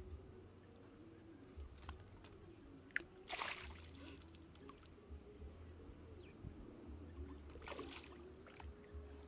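Faint water sloshing and dripping as a mesh net bag is lifted and moved through shallow water, with two short splashes, about three seconds in and near the end.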